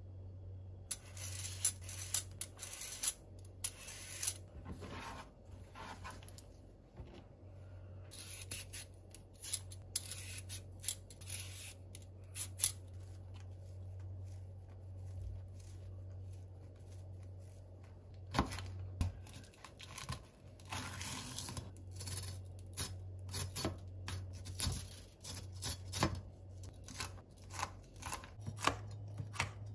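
Kitchen knife cutting vegetables on a plastic cutting board in runs of quick strokes: carrot early on, then green chili pepper being chopped through the last ten seconds. A quieter spell between is hands pulling apart enoki mushrooms. A low hum comes and goes underneath.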